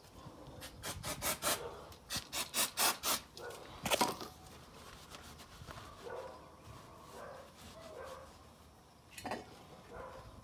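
An aerosol can of brake parts cleaner giving a quick run of short sprays in the first few seconds, then a microfibre cloth rubbing and wiping the brake caliper more quietly.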